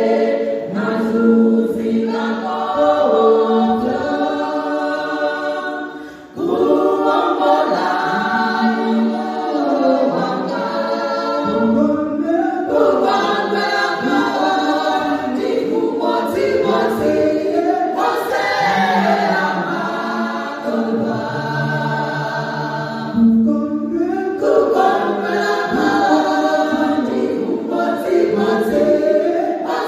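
Women's choir singing a gospel song a cappella, voices carried through handheld microphones. The singing stops briefly about six seconds in, then picks up again.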